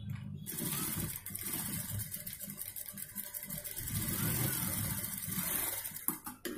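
Industrial single-needle lockstitch sewing machine running steadily, stitching a line through the fabric. It starts about half a second in and stops shortly before the end. A few short clicks follow as the threads are cut with scissors.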